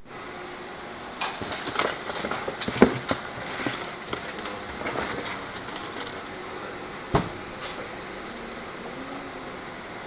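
Hands rummaging through a box of supplies and handling things on a desk: rustles with scattered clicks and knocks, the sharpest about three seconds in and another about seven seconds in.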